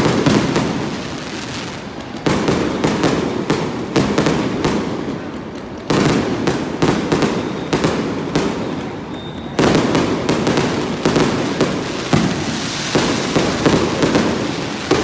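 Fireworks display going off in rapid volleys of sharp bangs and crackles. Fresh barrages start about two, six and nine and a half seconds in, each dying away before the next.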